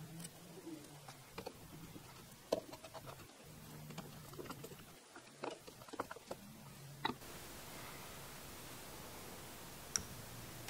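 Faint, scattered clicks and light taps of small parts being handled and fitted on a Honda CX500 carburetor body, the sharpest about two and a half seconds and seven seconds in.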